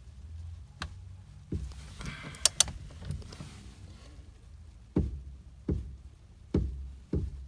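Torque wrench being worked on a steering-wheel hub nut, still short of its 29 ft-lb setting: a series of irregular knocks, with two sharp metallic clicks close together about two and a half seconds in.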